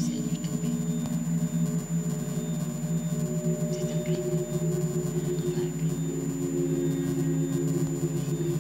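Electroacoustic drone of several steady low tones held together, shifting slightly in colour about five seconds in, with faint airy wisps around four and five and a half seconds in.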